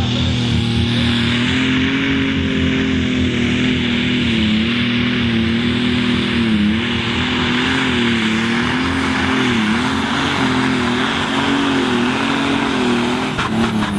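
Ford 8340 Pro Stock pulling tractor's engine at full throttle under the load of the pulling sled. Its high note wavers, sagging and recovering every second or two as the load bites. It drops away shortly before the end as the pull finishes.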